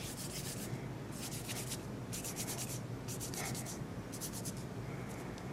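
Fingers rubbing and pressing soft fondant against a work surface, a light scratchy rubbing in repeated short strokes, over a faint steady low hum.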